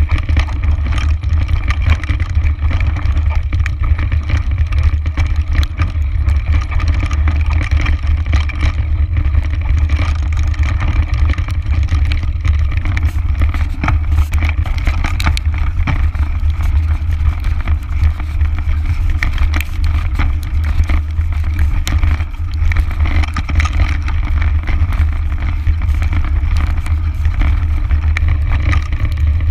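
Mountain bike descending a stony singletrack, heard on a chest-mounted action camera: a steady low rumble of wind buffeting the microphone and tyre noise, with frequent clicks and knocks as the bike rolls over rocks.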